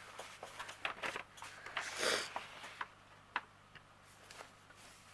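Scattered light clicks and taps, with a short crinkling rustle about two seconds in, from hands handling a diamond painting canvas and its plastic cover sheet.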